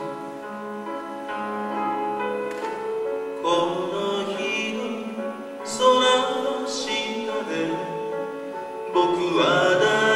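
Live piano playing slow, sustained chords, with a male voice singing long, wavering held notes near the end.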